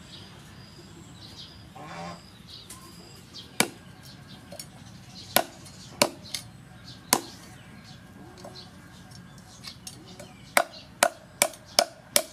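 Cleaver chopping through a whole fish onto a thick wooden chopping board, cutting off the fins: single sharp chops a second or two apart, then a quick run of about six chops near the end.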